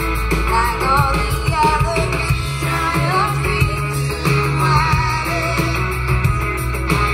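Live band playing a rock song, with a singer's voice over a steady bass line.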